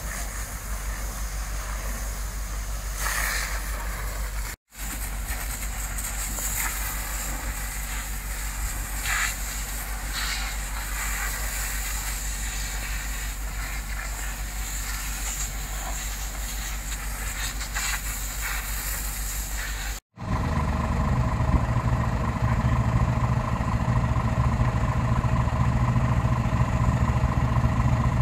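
Steady hissing of fire hoses and a burning thatched roof over a low engine hum. After about 20 seconds it gives way to the louder, steady running of a fire engine's diesel and water pump.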